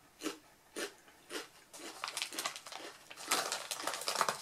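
A mouth chewing crisp potato chips close to the microphone: three crunches about half a second apart. Then the crinkling of a foil chip bag as a hand reaches into it, louder toward the end.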